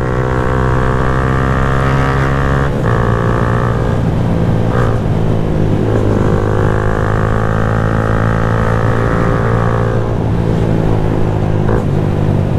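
Yamaha Sniper 150 motorcycle's single-cylinder engine idling through a replica Akrapovic exhaust canister, a steady, even exhaust note whose pitch wavers only slightly.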